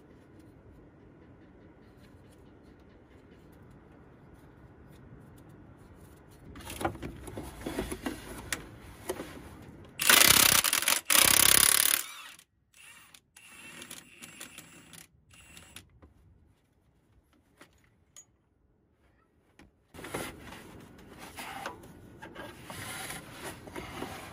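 Impact wrench hammering on the crankshaft damper (harmonic balancer) bolt in two loud bursts just past the middle. Before and after, hands rub and scrape metal around the belt pulleys and the damper as it is worked off the crankshaft.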